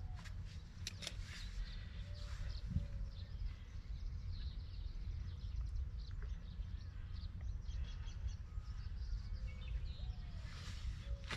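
Small birds chirping in the background over a steady low rumble, with a few sharp clicks in the first second or so and a single thump a little under three seconds in.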